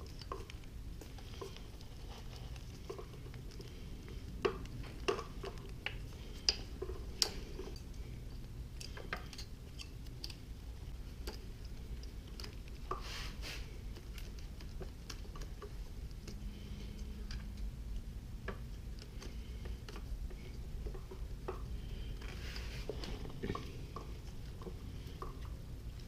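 Gloved hands handling a motorcycle's wiring harness and plastic connectors: scattered small clicks and taps, a few sharper ones in the first third, over a low steady hum.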